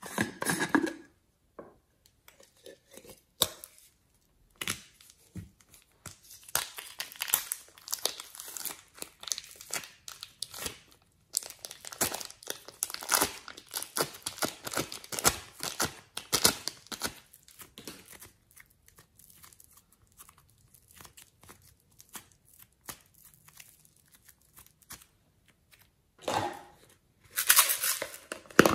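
Slime and clay being pressed, stretched and worked by hand, giving crackling, crinkling runs of small pops. There is a short burst at the start, two long runs in the middle, scattered ticks after them and another burst near the end.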